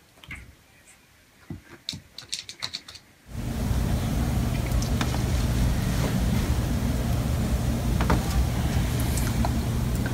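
Soft scattered clicks and taps of a puppy pawing at a mirror, then, about three seconds in, a sudden switch to a loud steady low mechanical hum with a few sharp taps over it.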